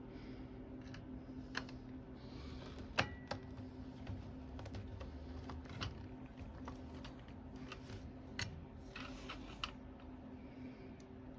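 Scattered light clicks and taps from a screwdriver, screws and the parts of an aluminum window frame being handled, the sharpest one about three seconds in, over a steady low hum.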